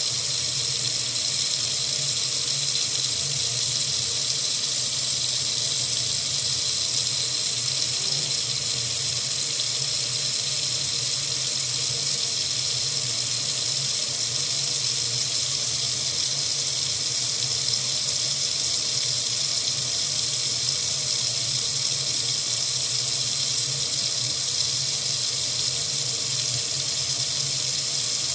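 Water running steadily from a faucet into a sink, an even hiss with no change in flow.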